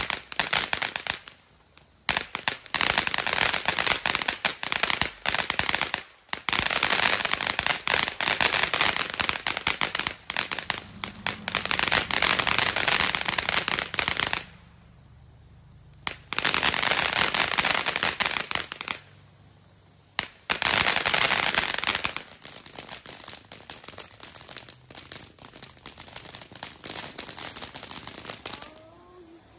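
Consumer fireworks crackling and popping in rapid, dense runs of bangs several seconds long, with short pauses between them and a quieter, sparser crackle toward the end.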